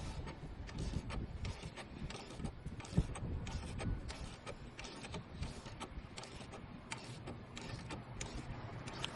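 A run of light, irregular mechanical clicks and taps from hand tools working on car suspension, with one sharper knock about three seconds in.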